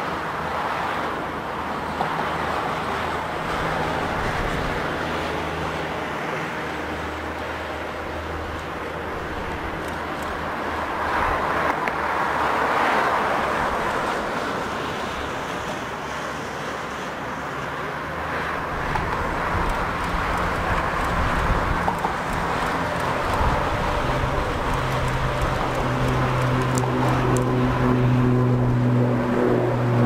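Twin-turboprop ATR 72 airliner, its propellers and turbines running and then spooling up to takeoff power for the takeoff roll. The propeller drone grows stronger and steadier over the second half as the aircraft accelerates and lifts off.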